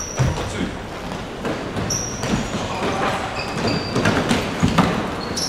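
Futsal ball being kicked and bouncing on an indoor court, repeated dull thuds, with short high squeaks of players' shoes on the floor.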